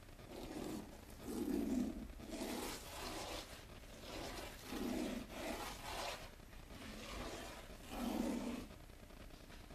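A fingertip brushing loose fine model-railroad ballast grains over the ties and rails of N scale track: a run of about eight short rubbing, scraping sweeps.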